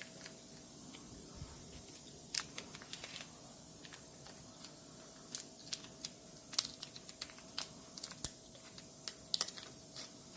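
Irregular light clicks, taps and rustles of small tyre plug repair kit parts being handled and fitted together, sparse at first and more frequent in the second half, over a faint steady hum.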